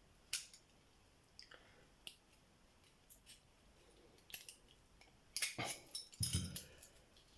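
Scissors cutting a key out of its plastic blister packaging: a few separate sharp snips, then a denser burst of snipping and crackling plastic handling near the end.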